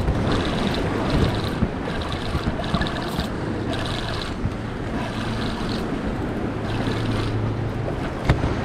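Wind buffeting the microphone over washing surf, with a Van Staal VR50 spinning reel cranked in short repeated spells as a hooked fish is reeled in.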